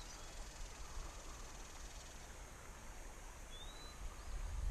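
Quiet outdoor creekside ambience: a steady faint high hiss and a low rumble, with one short rising bird chirp about three and a half seconds in. The low rumble swells near the end.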